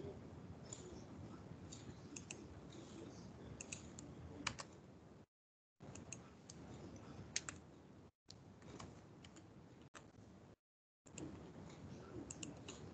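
Faint computer keyboard typing, scattered light key clicks over a low hiss, heard through a video-call connection. The audio cuts to dead silence several times in the middle.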